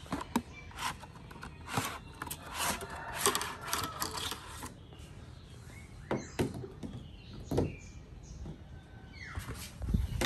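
Plastic film wrapping crinkling and rustling as it is peeled off a new frameless wiper blade, in irregular bursts that are busiest a few seconds in, with a dull knock near the end.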